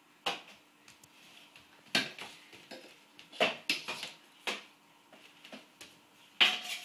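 A broom clattering against the hardwood floor and the legs of a high chair as a toddler swings it: about half a dozen sharp knocks at irregular intervals, the loudest near the end.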